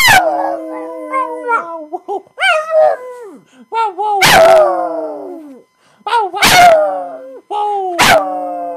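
Pug howling for its owner: a run of about five drawn-out howls, each opening with a sharp yelp and then sliding down in pitch.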